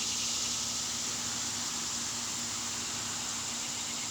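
Steady background hiss with a faint low hum; no bow shot or arrow impact is heard.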